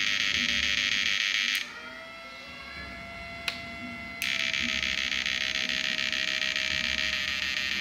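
Electrofishing inverter buzzing loudly while its output is switched on, first for about a second and a half and then again from about four seconds in, with a steady high whine underneath that drifts slightly in pitch.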